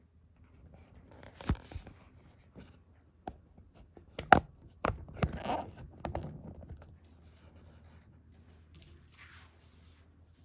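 Sheet of patterned craft paper being handled and laid on a desk, rustling, with several sharp knocks and clicks of things set down, the loudest about four seconds in, and a short rustle near the end.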